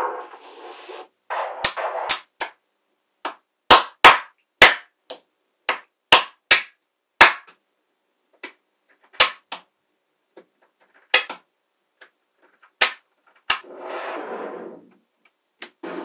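Small magnetic balls snapping together in an irregular series of sharp clicks as strands and rows are pressed into place, with short stretches of rattling as a handful of balls is shifted, once at the start and again near the end.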